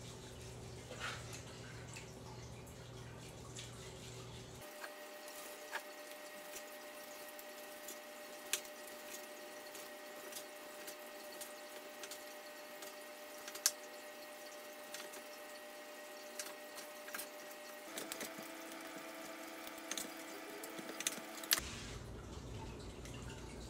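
Chef's knife slicing pork on a wooden cutting board: scattered light taps as the blade comes down on the board, over a faint steady hum.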